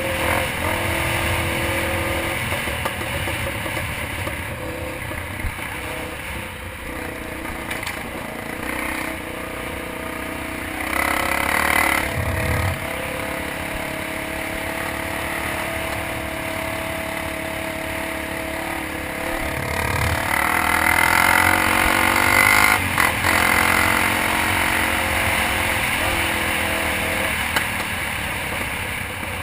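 Dirt bike engine running on a trail ride, its pitch rising and falling with the throttle, swelling louder about a third of the way in and again about two-thirds in.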